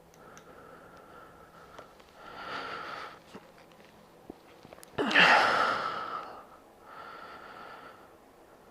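A person breathing out heavily three times, the one about five seconds in the loudest.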